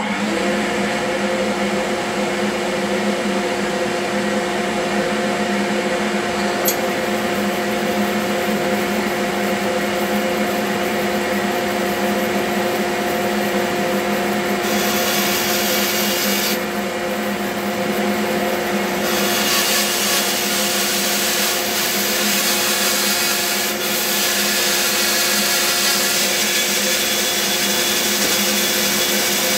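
Bandsaw running steadily with a constant motor hum and whine while its blade cuts slowly through a thick glued-up wood block.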